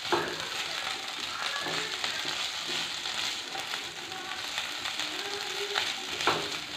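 Diced potatoes and chopped green chillies sizzling in oil in a nonstick frying pan while a silicone spatula stirs them, with a couple of sharper scrapes against the pan, one just after the start and one near the end.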